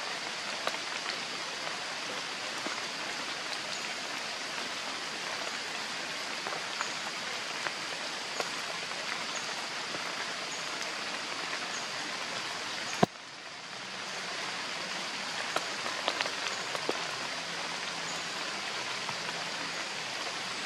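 Steady rain hissing on forest leaves and paving stones, with scattered drips. A single sharp click comes about two-thirds of the way through.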